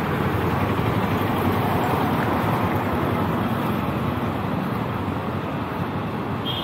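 Steady road traffic: vehicles running along a busy city street, a dense, even noise that eases slightly near the end.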